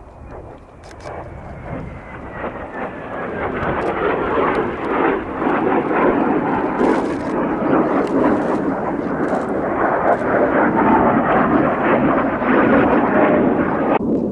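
Blue Impulse Kawasaki T-4 jet trainers passing in a display, their turbofan roar swelling over the first few seconds after a faint whine falls in pitch. The roar holds loud and steady, then cuts off abruptly just before the end.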